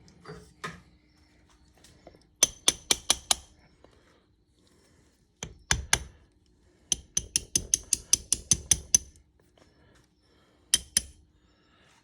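Quick runs of sharp metal-on-metal taps with a bright ring as brake pads and their retaining pins are worked into a Girling brake caliper. There is a run of about eight taps, then two heavier knocks, then about a dozen taps at roughly six a second, and two more near the end.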